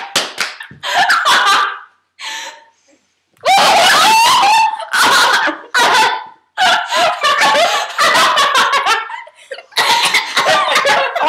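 Two young women coughing, gagging and crying out in loud fits after taking spoonfuls of dry ground cinnamon, the powder catching in their throats; short lulls about two and six seconds in.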